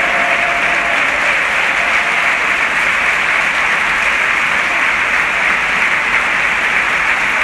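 Large football stadium crowd applauding, a dense, steady clapping with no breaks.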